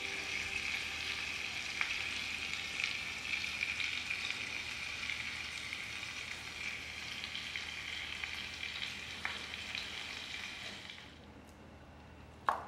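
A small egg sizzling in a tiny dish: a steady frying hiss with a few faint ticks, dying away about eleven seconds in. Near the end, one sharp knock as a small knife cuts through the egg onto a wooden board.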